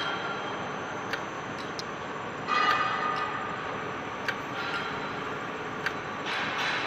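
Slotting machine cutting a keyway: a steady mechanical running noise, with a louder metallic burst of about a second as the ram makes its cutting stroke roughly every three and a half seconds, and sharp single clicks in between.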